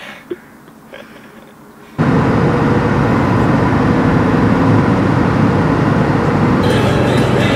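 Land Rover Defender Td5 heard from inside the cabin at highway speed: its five-cylinder turbodiesel and road noise make a loud, steady drone that starts abruptly about two seconds in, after a quiet stretch with one small click.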